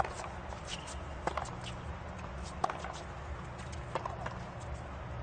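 Tennis ball being hit back and forth in a rally: four sharp racket strikes, each about a second and a third after the last, with fainter ball bounces and shoe ticks between, over a steady low crowd hum.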